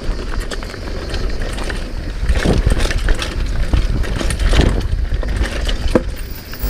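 Mountain bike descending a rough dirt trail at speed: wind buffeting the microphone with a heavy low rumble, tyres running over dirt, and a steady stream of rattles and knocks from the bike over bumps. It swells louder about two and a half and four and a half seconds in.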